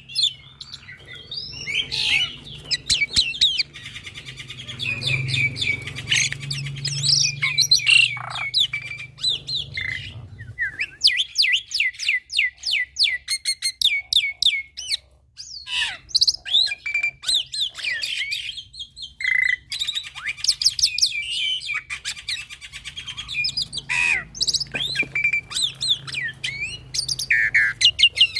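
Young black-winged starling (jalak putih) singing non-stop: a rapid, varied stream of chirps, whistles, rattling clicks and short sweeping notes, with its song filled with mixed-in phrases (isian). The singing thins out briefly about halfway through, then picks up again.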